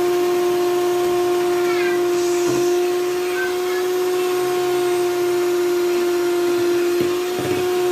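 Electric hand mixer running at one steady speed with a constant whine, its beaters whisking eggs, molasses and brown sugar in a bowl.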